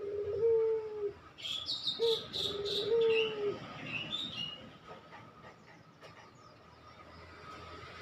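Barbary dove (puter) cooing: two phrases in the first three and a half seconds, each a short note followed by a longer one that droops at the end. A small bird chirps rapidly in quick high notes over the second phrase.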